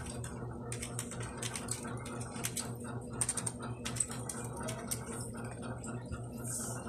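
Rapid, irregular clicking over a steady low hum.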